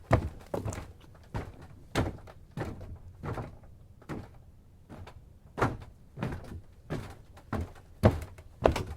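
Footsteps in tennis shoes on a wooden boat dock: light wooden clunks, about one or two a second, thinning out to a short pause around the middle before the walk picks up again.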